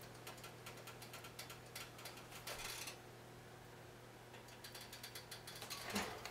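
Faint rapid ticking and crackling from a covered cast iron Dutch oven heating on the burner with pita bread baking inside, over a steady low hum. Near the end a brief rustle as a silicone oven mitt grips the lid.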